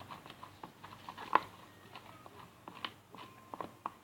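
Thickening slime being stirred in a bowl: scattered small clicks and sticky squelches from the utensil working the stiffening glue mixture, with one louder click about a second and a half in.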